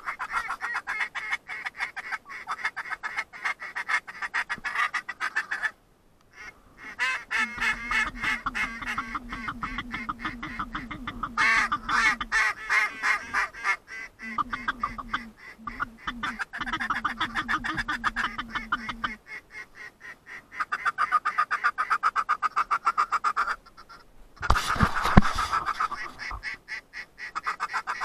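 Ducks quacking in rapid, continuous chatter, with stretches of a lower, buzzy pitched note in the middle. A loud sudden thump comes near the end.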